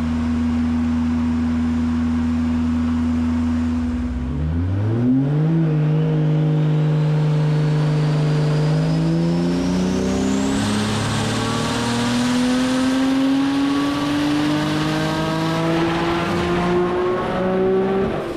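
Volvo race car engine under load on a hub dyno: it holds steady revs, then about four seconds in steps up and climbs slowly through a long full-throttle power run. A high whine rises with it, and a hiss joins about halfway.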